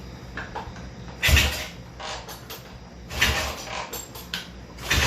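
Kick-starter strokes on a 1968 Triumph 650 twin: three kicks a little under two seconds apart, each a short loud clunk as the engine is turned over, without it catching. A hard-starting engine that will not fire.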